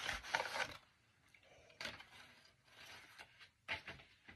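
Crumpled brown kraft paper wrapping crinkling and rustling as it is handled for about the first second, then a few brief, softer rustles.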